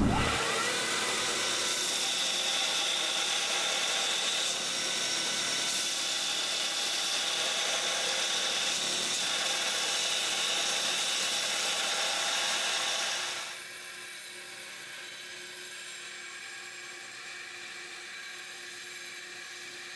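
Power grinder grinding a hot-forged steel piece, taking off burrs and shaping it: a steady hissing grind. It drops to a quieter level about two-thirds of the way through.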